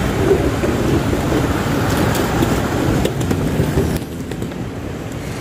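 Airport luggage trolley rolling across a tiled floor, a steady low rumble with scattered clicks that eases off about four seconds in.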